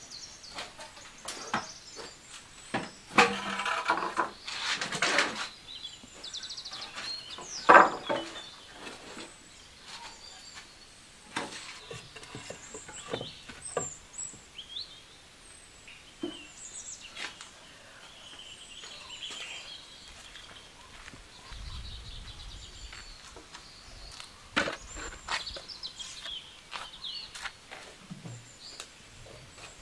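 Scattered knocks and rustling of things being handled, the sharpest knock about eight seconds in, with birds chirping in the background.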